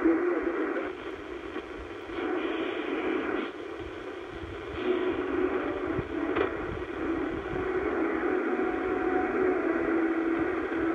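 Shortwave receiver in AM mode being tuned across the 31-metre band: noisy hiss and fading signals with a few brief static clicks. A faint broadcast signal at 9865 kHz steadies in the second half.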